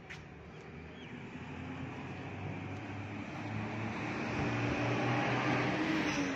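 A motor vehicle's engine running steadily, growing gradually louder.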